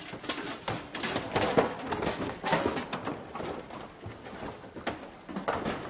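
Irregular knocking and thumping on hollow wood as people clamber up a stacked pile of wooden furniture.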